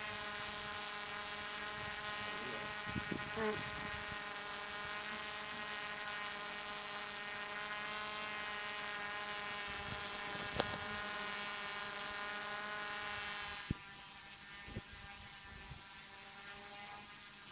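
DJI F450 quadcopter's motors and propellers whirring steadily as it hovers overhead. About fourteen seconds in the hum drops sharply quieter and carries on faintly. A single sharp click comes a few seconds before that.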